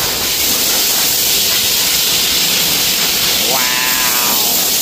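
Steady hiss of compressed air from hand-held air hoses blowing water off a freshly washed car. About three and a half seconds in there is a brief tone that rises and then holds for under a second.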